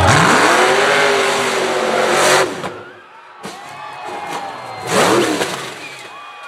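Off-road buggy's engine revving hard at full throttle up a steep hill, cutting back sharply about two and a half seconds in as the buggy tips over, then a second brief surge of revving near the five-second mark.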